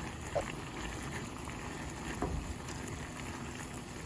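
Pot of squid and vegetables cooking on the stove, a steady low simmering noise, with a couple of light clinks from a utensil or lid.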